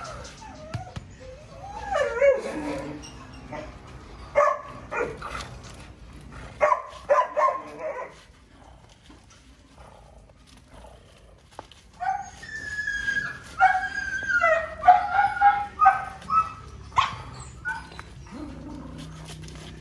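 A 15-week-old Belgian Malinois puppy whining and yipping in short bouts, worked up during ball-drive training. There is a quiet gap in the middle, then a longer run of calls.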